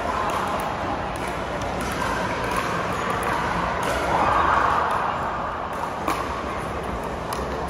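Large echoing indoor pickleball hall: a few sharp pops of paddles striking plastic balls, over steady background chatter.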